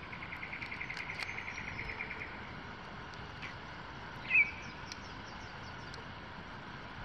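Bush ambience over a steady hiss: a rapid pulsing trill for about the first two seconds, then a single short, sharp high chirp about four seconds in.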